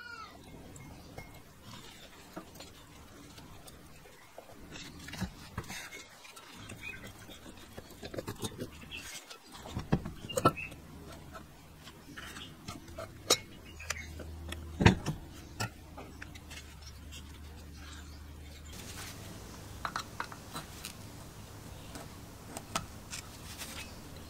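Metal parts of a Robin EC10 two-stroke engine being handled during disassembly: scattered clinks and knocks of metal on metal and on the work mat, with screwdriver work on small screws near the end. The loudest knock comes about fifteen seconds in, over a faint low steady hum.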